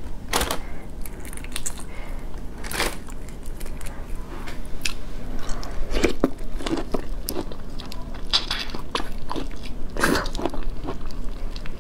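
Close-up eating sounds of a whole shell-on prawn being bitten, crunched and chewed, in irregular clicks and crackles.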